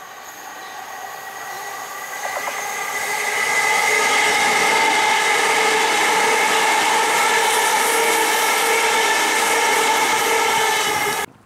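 c2c Electrostar electric multiple unit passing at speed: rumble with a steady, multi-toned whine that grows louder over the first few seconds as it approaches, then holds loud as the carriages go by. It cuts off suddenly near the end.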